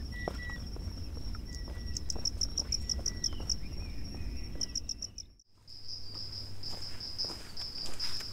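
Insects trilling in a steady high-pitched chorus, with a run of rapid pulsed chirps a couple of seconds in. The sound breaks off briefly about five seconds in and resumes as a steadier, slightly pulsing trill.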